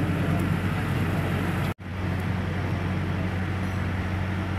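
Steady outdoor street noise with a low rumble of traffic, cut off for an instant just under two seconds in, then going on as before.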